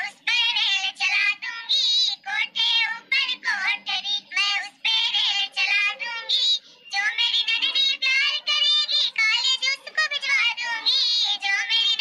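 A high-pitched, cartoonish female voice singing a Bundelkhandi dadra (gari geet) folk song in long wavering phrases, with a brief break about halfway through.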